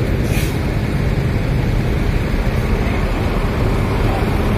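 Diesel bus engine running nearby as a steady low rumble, with a brief hiss of air about half a second in.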